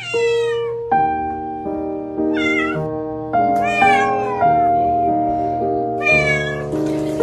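A cat being bathed meows four times, each call falling in pitch, over soft background music with held piano-like notes.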